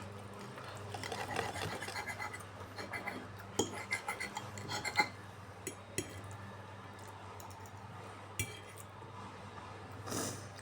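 Metal cutlery clinking and scraping against a dish. The clinks come in a quick run over the first few seconds, then only now and then, over a steady low hum.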